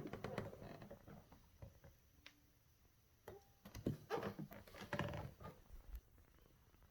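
Faint, irregular clicks and rustles of handling, in a few short clusters with quiet gaps between them.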